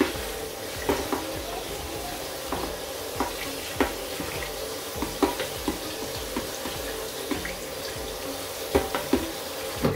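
Kitchen tap running into a stainless steel sink as rice is rinsed in a plastic colander, with water splashing through the rice. Scattered light knocks of the colander and rice sound over the steady rush of water.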